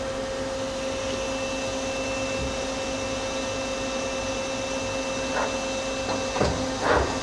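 Mazak Super Quick Turn 200MY CNC turning center running with a steady hum. From about five seconds in, its 12-position turret indexes, and each station change gives a sharp clunk, several times about half a second apart.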